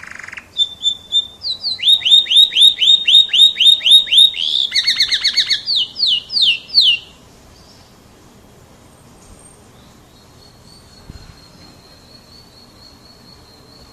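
Kenari F1 canary singing a phrase of repeated downward-sweeping notes, about four a second, then a fast trill and a few slower sweeps, stopping about halfway through. A faint, high, steady tone follows near the end.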